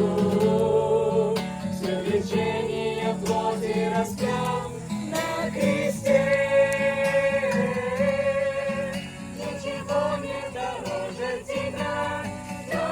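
Christian song: several voices singing together in held, sustained notes over a strummed acoustic guitar.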